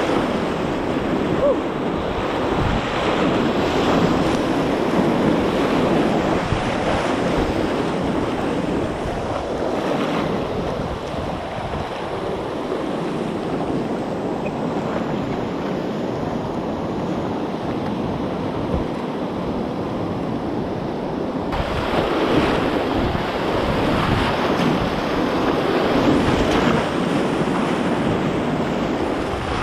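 Whitewater rapids rushing and splashing around a kayak, heard up close at water level with spray hitting the microphone. A steady, loud wash of water that swells again in the last third.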